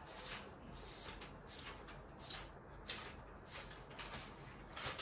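Paper banknotes, fake ₹2000 notes, being peeled one by one off a wad and dropped: a string of short, faint, crisp paper rustles at irregular intervals.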